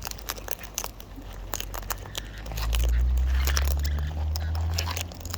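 Many sharp clicks and crunches of birds cracking seeds and nuts in their beaks. About two and a half seconds in, a loud low rumble comes in and slowly fades.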